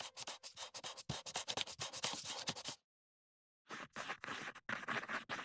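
Faint, rapid, irregular scratching and clicking in two runs, with about a second of dead silence between them.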